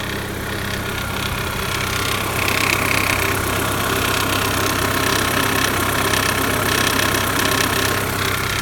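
Audi/VW 1.8T AEB 20-valve turbo four-cylinder idling with a fast, even ticking rattle from the top end. The owner takes it for hydraulic lifter knock, then places it on the cam chain tensioner side and suspects the tensioner is worn out.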